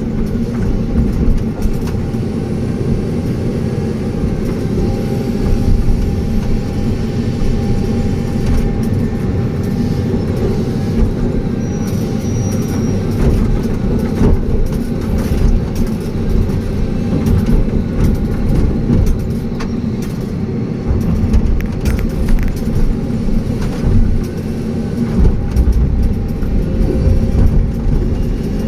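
Excavator's diesel engine running steadily under work, with a thin steady whine above it and occasional sharp knocks as it works the soil.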